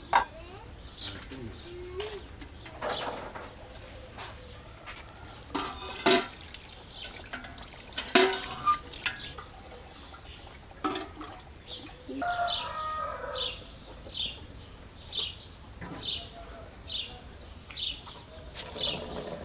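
Sharp knocks and clicks of things being handled, with birds calling. From about two-thirds of the way in, one bird repeats a short high chirp about twice a second.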